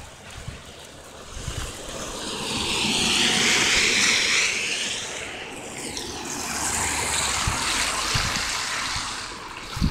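A road vehicle passing by: a hiss that swells to a peak a few seconds in, fades, and swells again as a second one goes by, over low rumbling from wind on the microphone.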